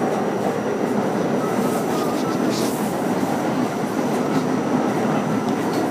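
Staten Island Railway R44 subway car running at speed between stations, heard from inside the car: a steady rumble of wheels on rail, with a few faint clicks.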